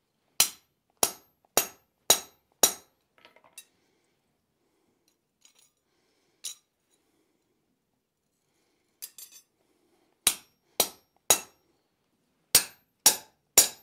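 Hand hammer striking a center punch into a hot iron bar on the anvil: five sharp metallic blows about two a second, a pause with a few light clinks as the piece is turned over, then six more blows. The punch is being driven through from both sides to open an axle hole without drilling.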